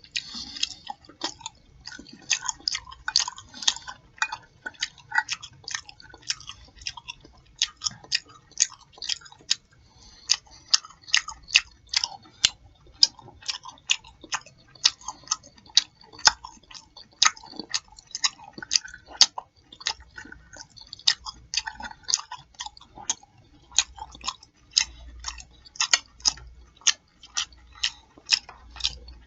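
A person chewing food close to the microphone with open-mouthed lip smacking: sharp wet smacks come about two to three times a second, with softer chewing between them.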